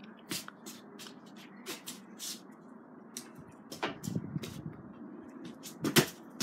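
A football kicked off artificial grass, then scattered light knocks and thuds, with a sharp, loud thump about six seconds in.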